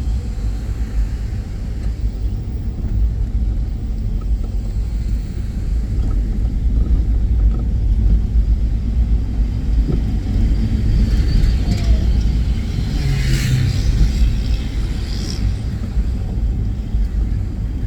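Car driving, a steady low road and engine rumble, with a brief rise of hiss about thirteen seconds in.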